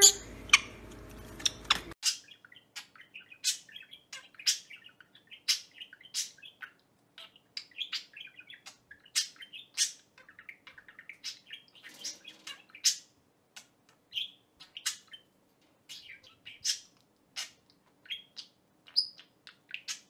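Budgerigar chirping: a string of short, high chirps, about one or two a second, with brief gaps.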